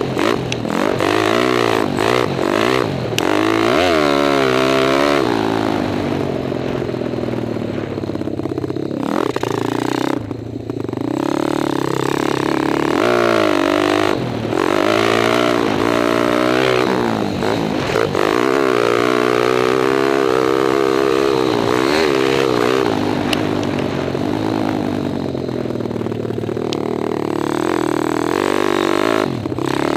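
Kawasaki KLX dirt bike's 177cc stroker single-cylinder four-stroke engine revving up and down again and again as it is ridden hard, the pitch climbing through each pull and falling off between. The throttle briefly shuts off about a third of the way in.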